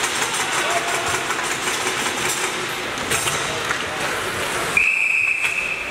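Ice rink game noise of skates and sticks with sharp clicks, then a referee's whistle blown in one long steady blast near the end, stopping play.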